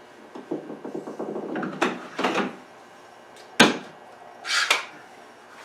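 Woodworking clamps being loosened and taken off a glued chair: a quick run of clicking and rattling, a couple of scraping strokes, then one sharp knock of a clamp being set down, followed by a short high scrape.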